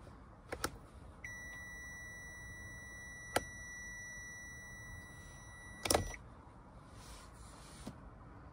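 Toyota Esquire's lights-left-on warning buzzer: a steady, continuous high beep that starts about a second in and cuts off about six seconds in, together with a loud burst of clicks. A couple of small clicks come before it and another one partway through.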